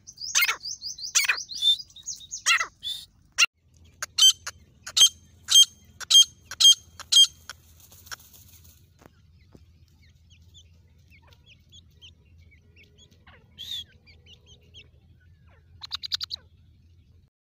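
Grey francolin hen calling: a quick run of sharp, loud notes, then a string of evenly spaced notes about two a second that stops after about seven seconds. Near the end come one short note and a brief rapid flurry of notes.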